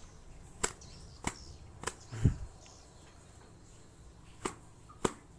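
A series of about six sharp clicks or taps at uneven intervals, the one near the middle heavier, with a dull thump.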